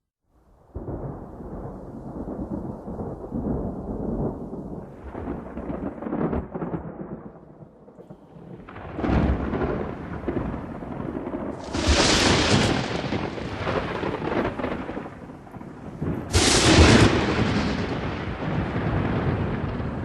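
Thunder: after a moment of silence, a low rolling rumble for several seconds, then three sharp claps of close lightning, the last the loudest, each fading back into rumble.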